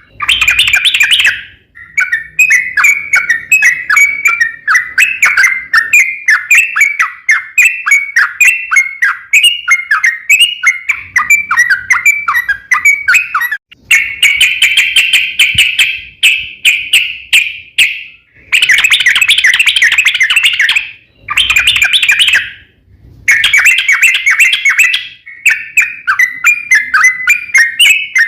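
Yellow-vented bulbul (trucukan) singing long, fast runs of chattering notes, the phrases broken by short pauses a few times.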